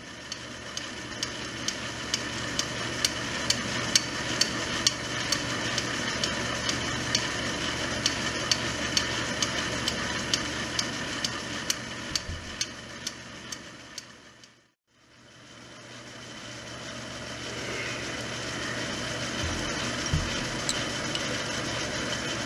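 Metal lathe running while a brass part is center-drilled and then drilled from the tailstock: a steady machine run with evenly spaced light ticks, a few a second. About two thirds of the way through the sound fades out and fades back in.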